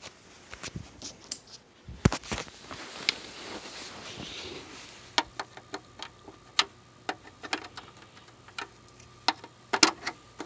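Irregular clicks and taps of a plastic gaming headset and its USB cable being handled and plugged in. A faint steady hum comes in about halfway.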